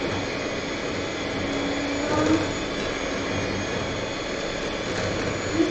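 Electric hand mixer running steadily with its beaters in a bowl, creaming butter and sugar for cake batter.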